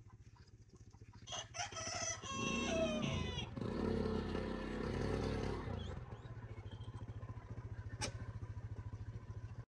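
A rooster crows once, starting about a second in; the crow lasts about two seconds and falls off in pitch at the end. Under it runs a steady low rumble, which swells for a couple of seconds after the crow.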